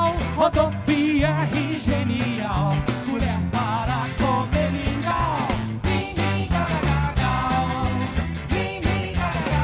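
Live band playing an upbeat song, with a steady bass line and a regular beat under a wavering melody.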